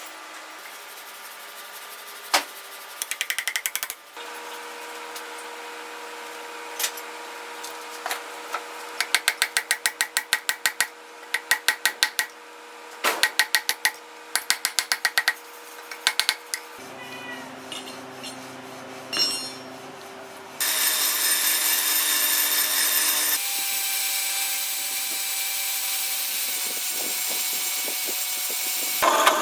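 Metalworking sounds in short edited segments: quick runs of sharp metal strikes, about five a second, over a steady hum, then a power tool running steadily with a bright hiss through the last third.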